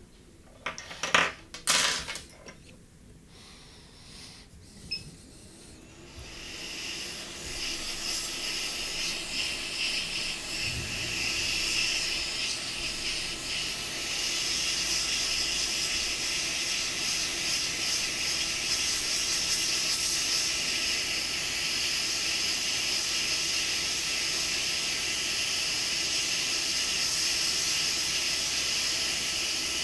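A few sharp clicks in the first two seconds, then a hot-air rework station starts blowing about six seconds in with a steady hiss, heating a flux-covered chip on the phone's logic board to desolder it.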